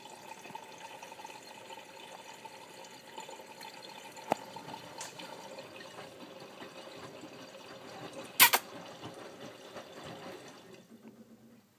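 Miele W562 washing machine filling with water for its first rinse: a steady rush of water running into the drum. There is a small click about four seconds in and a sharp clack, the loudest sound, about eight and a half seconds in. The sound dies away near the end.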